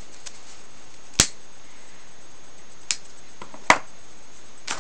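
Four sharp, irregularly spaced clicks over a steady hiss, the third the loudest: lip pops and smacks as a man puffs on his tobacco pipe.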